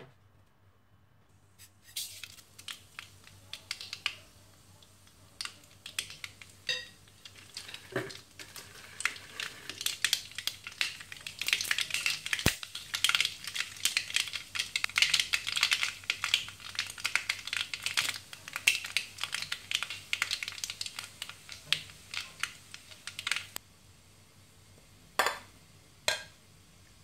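Mustard seeds popping and spluttering in hot oil in an aluminium kadai: a dense crackle that builds, is thickest in the middle and dies away a few seconds before the end. Two short knocks follow near the end.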